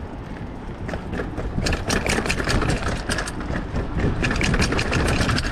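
Kona Blast hardtail mountain bike rattling down concrete steps: quick knocks and clatter several times a second as the wheels drop off each step, over a low rumble.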